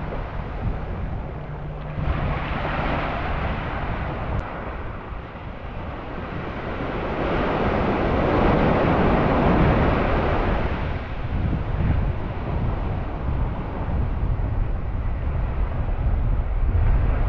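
Wind buffeting the microphone over surf washing onto a sand beach, with a swell of wave noise for a few seconds around the middle.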